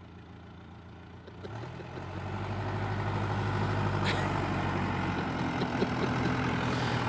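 A motor vehicle engine running; its steady low hum comes up about a second and a half in and grows louder before holding steady. A single sharp click sounds about four seconds in.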